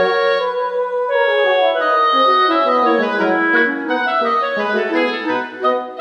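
Instrumental background music: a melody moving from note to note over sustained chords.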